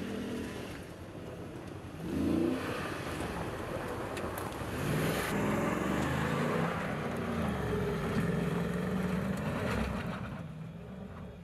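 2019 Ram 2500 Power Wagon's 6.4-litre HEMI V8 accelerating off-road, its revs rising in several sweeps. It gets loudest as the truck passes close about six seconds in, then fades as it climbs away up the hill.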